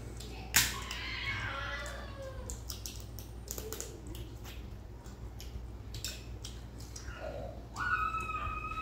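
Close-miked eating sounds: scattered sharp clicks and smacks of hands and mouths working at masala crab and rice, with one loud crack about half a second in. A short, high, held call sounds in the background near the end.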